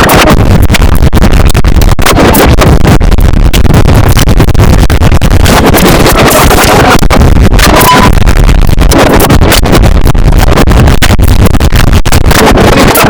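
Heavily distorted, clipped noise held at maximum loudness throughout, with no clear tone or rhythm.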